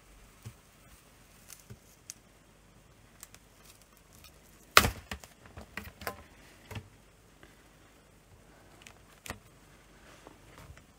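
Scattered plastic clicks and taps from handling a laptop LCD panel as it is prised out of the lid with a thin card and tipped face down, with one sharp knock about five seconds in followed by a quick cluster of smaller clicks.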